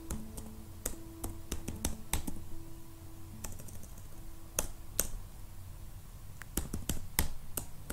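Typing on a computer keyboard: irregular key clicks with pauses between them, coming faster in a short run near the end.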